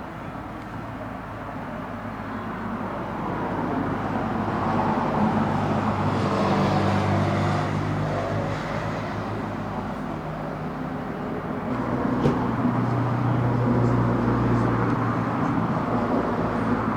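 Engine noise of passing road traffic, a steady low hum that swells twice, about five seconds in and again near twelve seconds in.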